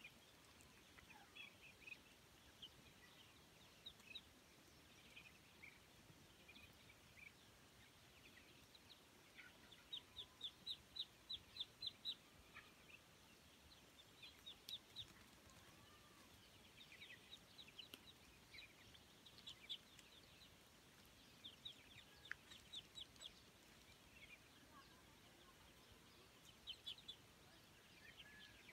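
Flock of young ducks and ducklings peeping, faint, with short high peeps coming in quick runs again and again; the loudest run comes about ten seconds in.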